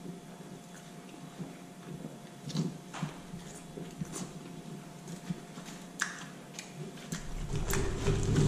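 Mouth sounds of someone eating: scattered wet clicks and smacks of chewing over a faint steady hum. A louder, lower sound comes in about seven seconds in.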